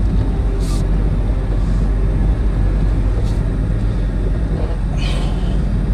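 4x4 truck driving along a dirt trail, with a steady low rumble from the engine and tyres. Three brief scratchy sounds break in: about a second in, around three seconds in, and near the end.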